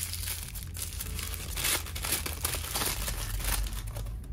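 Thin tissue paper crinkling and rustling continuously as it is unwrapped by hand from around a lipstick.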